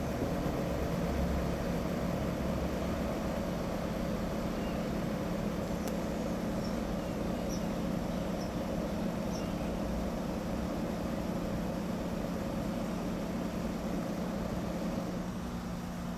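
Steady mechanical hum, like distant traffic or machinery, running evenly throughout, with a few faint, high bird chirps about halfway through.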